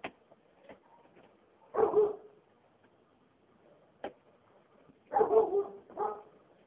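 A dog barking in short bursts: one bark about two seconds in, then a quick run of barks around five to six seconds in, with a few faint clicks between.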